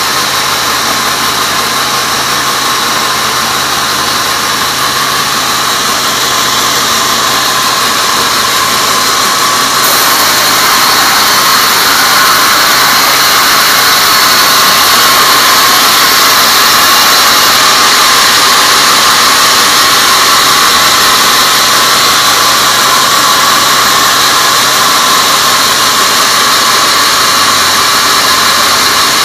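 Horizontal band sawmill running, its blade ripping lengthwise through a teak log: a steady, loud, high-pitched rasp of blade and motor that grows a little louder about ten seconds in.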